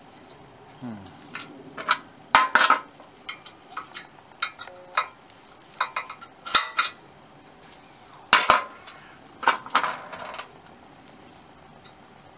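Irregular sharp metallic taps and clinks as a 1 mm drill bit is tapped down through the stubborn remains of a rivet in a motorcycle frame.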